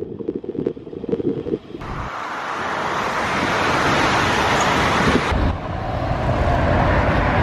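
Wind buffeting the camera's microphone, muffled and fluttering at first, then from about two seconds in a loud, steady rush of wind mixed with road traffic that grows louder.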